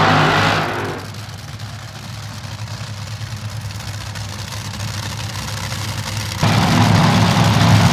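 Two Top Fuel dragsters' supercharged nitromethane V8s: very loud as the burnout ends, dropping about a second in to a lower idling rumble. The engines rise sharply loud again about six seconds in, as the cars come back up to the line.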